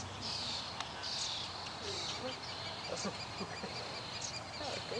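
Outdoor field ambience: a high-pitched chirping call repeats about once a second, each with a sharp higher flick, over a steady background hiss.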